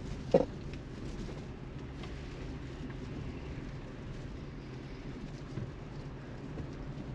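Car driving, a steady low rumble, with one sharp knock about half a second in.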